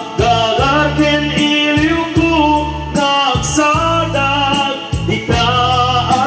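Music: a man singing into a microphone over a backing track with a steady pulsing bass, the song's melody rising and falling.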